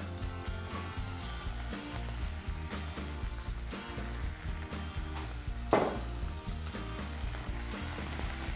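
Yardlong beans sizzling in hot peanut oil in a wok after being tipped in, stirred with a wooden spatula near the end. Light background music underneath, and a short voice-like sound about six seconds in.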